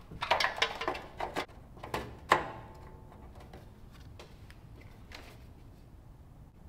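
Headlight sockets and wiring being handled and pushed into place in a riding mower's sheet-metal hood: a run of small clicks and knocks, the sharpest about two seconds in with a brief ring, then only faint ticks.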